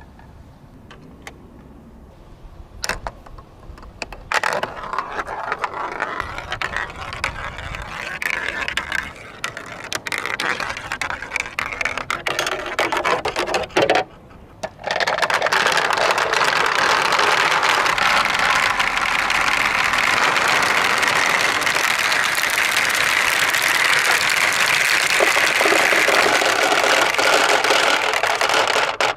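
Marbles rolling and clattering down a plastic spiral somen-nagashi water slider, with a few separate clicks at first. About halfway in, a steady, louder rush of water running down the slider takes over, driven by its electric pump, and it stops suddenly near the end.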